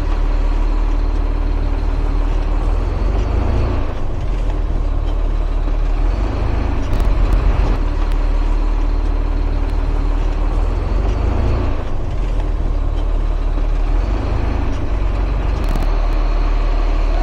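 Truck engine running while the truck is backed into position, the engine note swelling and easing several times as it is manoeuvred.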